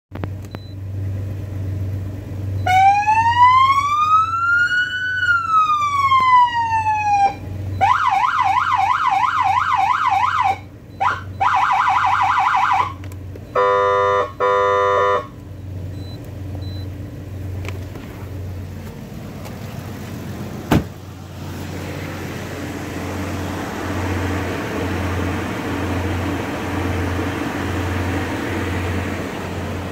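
Feniex Storm Pro 100 electronic siren through a Triton speaker, stepping through its tones: one slow rising and falling wail, then a fast yelp warble, then a faster phaser warble, then two short air-horn blasts. After a click about 21 seconds in, a steady rushing noise with a low pulsing hum fills the rest.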